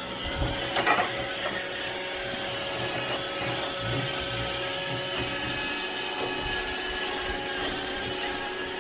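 Robot vacuum cleaner running: a steady motor and brush hum with several held tones over a hiss. A few louder knocks come about a second in.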